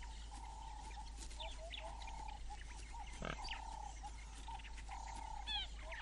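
Wild birds chirping and calling, many short rising and falling calls over a steady background chorus.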